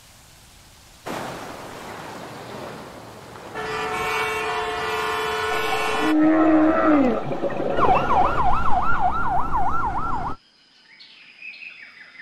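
Emergency-vehicle siren warbling rapidly up and down, about four cycles a second, then cutting off suddenly. Before it come a burst of noise, several steady horn-like tones held together, and a falling tone. Faint tones follow the siren.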